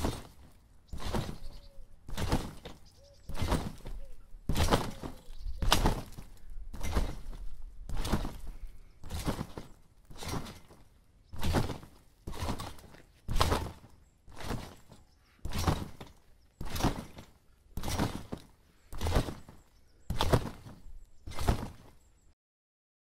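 A slow, even series of heavy thuds, about one a second, each with a short ringing tail, stopping abruptly near the end.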